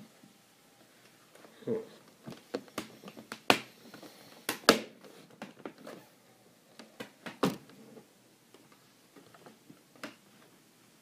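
Plastic lid and screen bezel of a Toshiba Satellite C55 laptop being pressed and snapped back into place by hand: a run of irregular sharp clicks and knocks, loudest a little before the middle.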